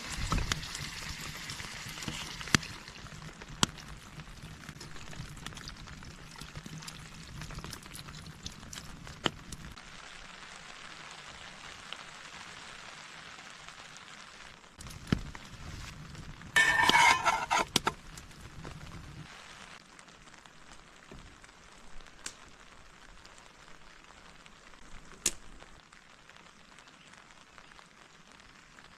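Rain hissing steadily on a tent, heavier for the first ten seconds, with scattered sharp ticks and a short, louder crackling burst about seventeen seconds in.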